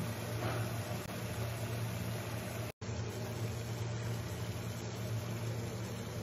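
Beef sizzling in a pan over a steady low mechanical hum, as of a kitchen fan or hood running. The sound drops out for a moment just under three seconds in, then goes on unchanged.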